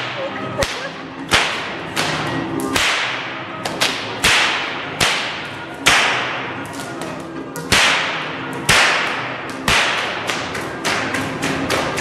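A Hungarian herding whip (karikás) cracked over and over: a dozen or more sharp cracks at an uneven pace of roughly one a second, with a short pause about two-thirds of the way through. Each crack echoes off the hard walls of a large tiled hall.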